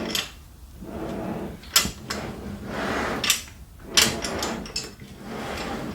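Scraping and rustling handling noises as a fridge freezer is shifted about, with two sharp knocks, one a little under two seconds in and one about four seconds in.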